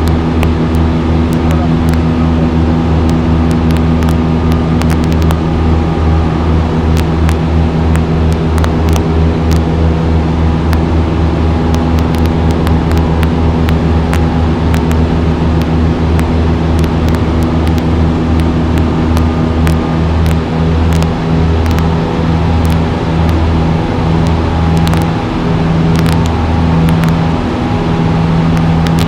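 Single-engine light airplane's piston engine and propeller running steadily at climb power just after takeoff, heard loud inside the cockpit.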